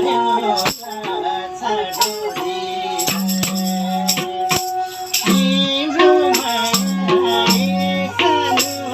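Nepali folk music: a sarangi plays a gliding, bending melody over repeated low notes and regular percussion strikes.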